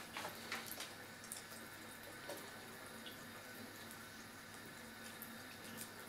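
Thin stream of tap water running from a bathroom faucet into the sink basin, steady and quiet, with a few faint sharp ticks over it.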